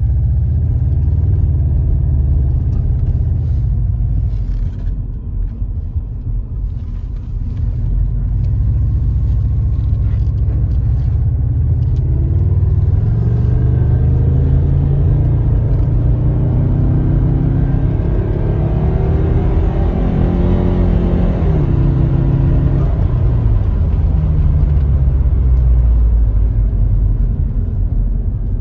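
Subaru Legacy GT-B's twin-turbo flat-four and road noise heard from inside the cabin while driving: a steady low rumble, with the engine note climbing as the car accelerates from about halfway through, then dropping back a little later.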